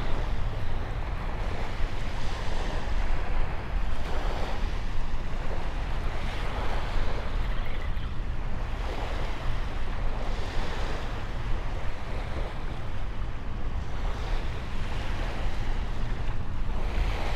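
Small waves washing onto a sand-and-pebble shore, one swell every couple of seconds, with wind rumbling steadily on the microphone.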